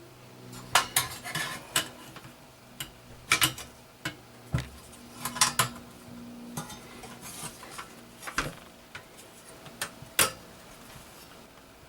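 Small metal parts and tools handled on a workbench: a dozen or so sharp, irregular clinks and knocks, with a faint low hum under the first part.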